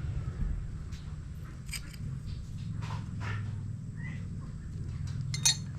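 Scattered light clicks and taps, like hand tools on metal engine parts, over a steady low hum, with the sharpest tap near the end.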